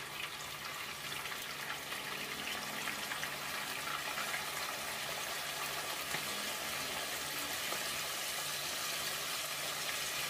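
Marinated chicken pieces deep-frying in hot oil in a frying pan: a steady sizzle full of fine crackles, growing a little louder over the first few seconds as more pieces go in, then holding.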